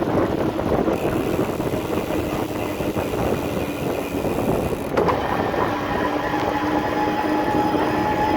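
Shimano E8000 mid-drive motor on an electric mountain bike being ridden, a steady whine over the rolling noise of the tyres and drivetrain. A sharp click comes about five seconds in, after which a higher whine joins.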